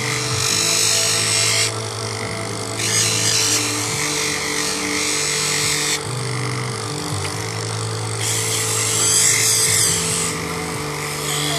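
Small electric polishing motor running a spinning wheel with a moss agate cabochon held against it: a rasping grind of stone on the wet wheel over a steady motor hum. The grind drops away three times for a second or two as the stone is eased off the wheel.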